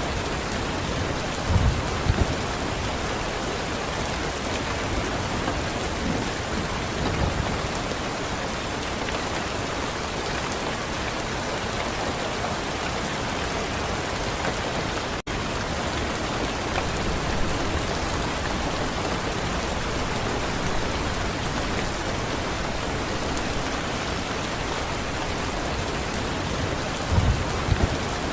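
Steady heavy rain hissing on a surface, with brief low rumbles of distant thunder near the start and again near the end. About halfway through the sound cuts out for an instant.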